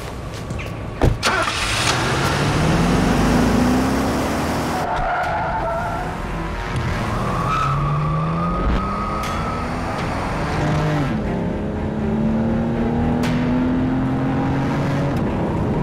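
Car engine revving hard as the car accelerates away, its pitch climbing and dropping back at several gear changes, with tyres squealing. There is a sharp bang about a second in.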